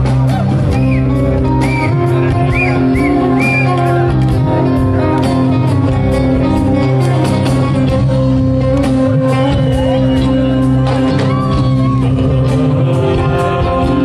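Live fusion-rock band playing loud through a PA: a drum kit keeps a steady beat under bass and electric guitar.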